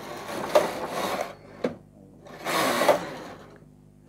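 Carriage of a Brother punchcard knitting machine pushed across the needle bed twice, each pass a rattling sweep lasting about a second. Between the passes comes one sharp knock as the lace and knit carriages clash at the end of the bed, which lacks extension rails to give them room.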